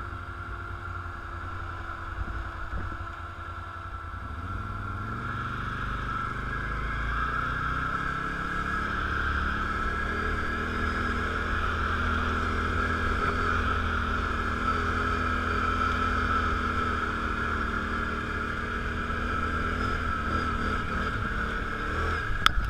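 Four-wheeler (ATV) engine running as it rides a dirt trail. Its pitch rises about five seconds in and then holds steady, with a steady high whine over it. A single sharp click comes near the end.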